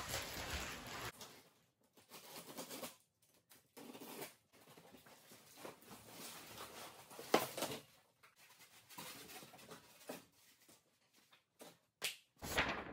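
Large cardboard shipping box being handled: irregular scraping and rustling of cardboard as it is tipped, slid and opened, with one sharp knock about halfway through.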